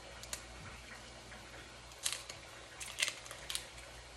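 Faint, scattered sharp clicks and crackles from fingers breaking and pulling apart a small hot pepper by hand: one click just after the start, then small clusters about two, three and three and a half seconds in.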